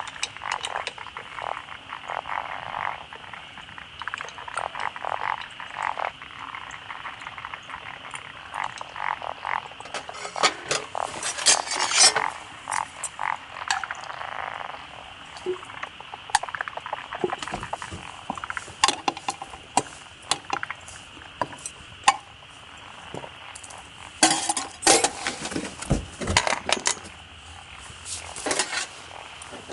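Frogs calling in a steady chorus, with repeated clinks and clatters of cookware and utensils coming in clusters.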